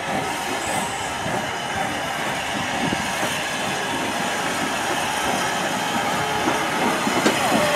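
S&DJR 7F 2-8-0 steam locomotive No. 53809 rolling slowly over the track towards the listener, with a steady noise that grows gradually louder as it nears.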